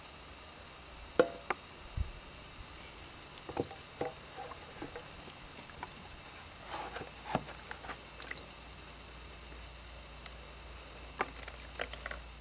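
Brass scale pan handled in a plastic tub of brass-cleaning liquid: scattered light knocks and clicks of the metal against the plastic, with small sloshes and drips of liquid as it is lifted out.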